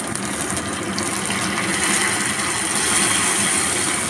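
Seafood soy sauce poured into a small saucepan of hot oil with fried ginger and spring onion, sizzling and bubbling as it comes to a boil, growing a little louder partway through.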